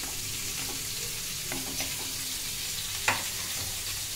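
Hot oil sizzling steadily in an aluminium kadai, with a wooden spatula scraping the pan a few times as a fried lump of asafoetida is lifted out. One sharper scrape or knock about three seconds in.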